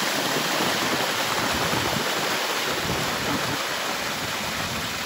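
A large body of water gushing out of a tarp-lined pickup truck bed over the tailgate and splashing onto the asphalt street. It starts suddenly and then runs on as a steady, loud rush.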